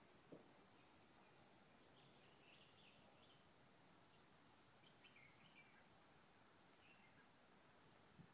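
Faint insect chirping in a fast, even pulse of high-pitched beats, about eight or nine a second, which stops briefly about a third of the way in and then resumes.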